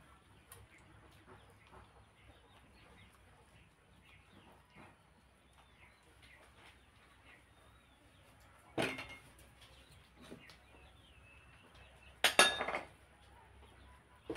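Eating sounds at a table: soft mouth and hand sounds with small clicks, broken by two loud clattering knocks of dishes, about nine seconds in and again near twelve to thirteen seconds. Faint chirps sound in the background.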